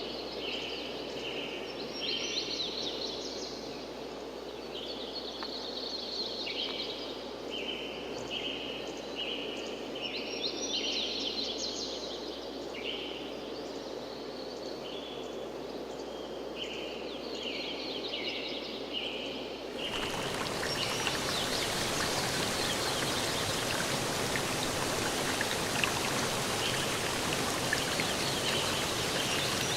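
Forest birds calling in short, repeated chirping phrases over a steady rush of flowing water. About two-thirds of the way through, the sound switches abruptly to a louder, hissier rush of water, with the birds only faint behind it.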